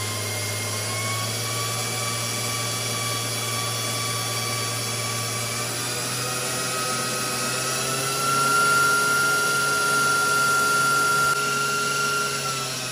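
KitchenAid stand mixer motor running at high speed, its wire whisk beating sponge cake batter in a steel bowl. The whine steps up in pitch about a second in and again around seven seconds in as the speed is turned up, and gets louder from about eight seconds.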